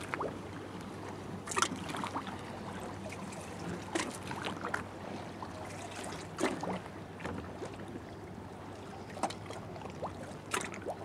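Water lapping against the hull of a moored wooden fishing boat and the stone quay: irregular small splashes every second or two over a steady hiss.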